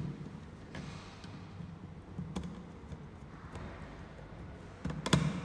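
Small clicks and taps of a screwdriver working a wire into a screw terminal on a plastic switch module, with a louder cluster of knocks about five seconds in.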